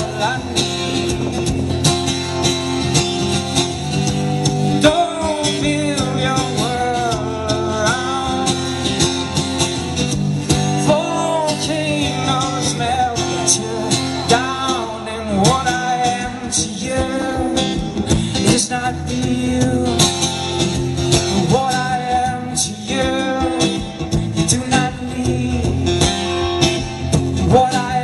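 Solo acoustic guitar strummed steadily with a male voice singing over it, heard live through a festival PA from the crowd.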